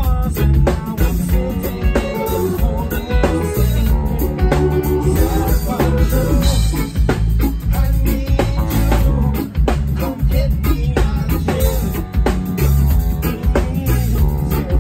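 A live band with a ska and reggae feel playing loud: drum kit and electric guitar under a man singing lead vocals into a microphone.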